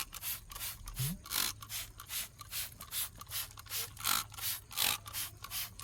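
Short, regular noisy strokes, about three a second, as iron remover is applied to a car wheel and brake.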